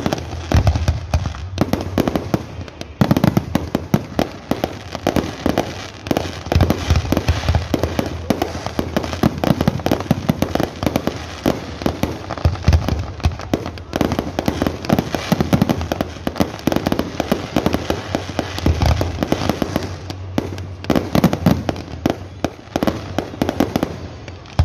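Aerial fireworks display: a dense, continuous stream of bangs and crackling from bursting shells, with heavier low booms every few seconds.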